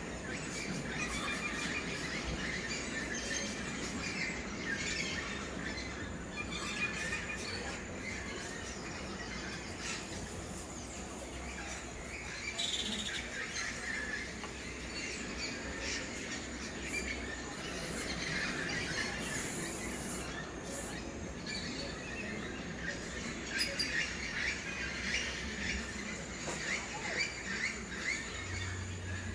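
A chorus of birds calling and chirping at dusk, with many short overlapping calls that grow busier near the end, over a steady low background rush.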